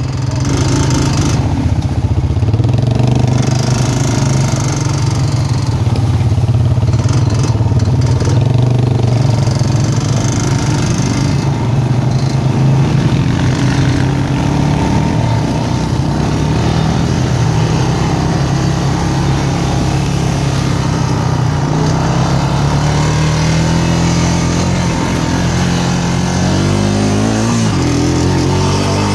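ATV (four-wheeler) engine running steadily as it drives along, its pitch rising near the end as it speeds up.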